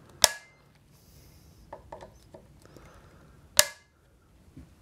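Small click-type torque wrench on scope ring screws, giving two sharp metallic clicks, one about a quarter second in and another about three and a half seconds in, each with a short ring: the wrench breaking over as the screw reaches its set torque. A few faint ticks of the tool come between them.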